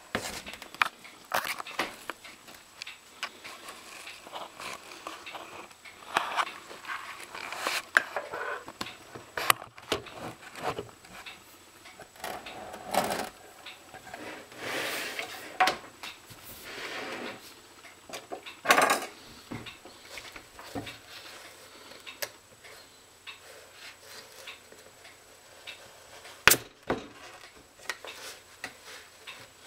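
A Nike LeBron basketball sneaker being handled on a hard counter: irregular knocks, clicks and short scraping sounds, with one sharp knock a little before the end.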